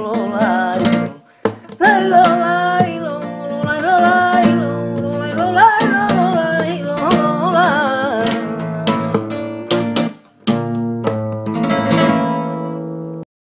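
Flamenco song ending: a voice sings long wavering lines over strummed acoustic guitar, then the guitar strums on alone to a final chord that rings and cuts off abruptly near the end.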